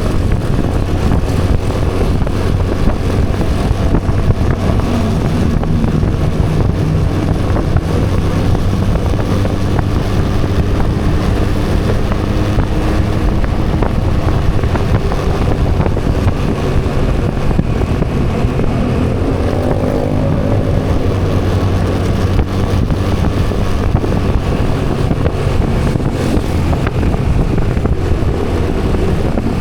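Steady vehicle engine and road traffic noise. About twenty seconds in, an engine's pitch rises and then falls.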